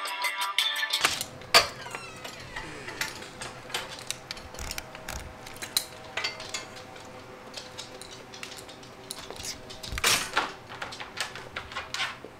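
Music cuts off about a second in. After that come scattered small clicks and knocks over a steady low hum, with a louder clatter about ten seconds in.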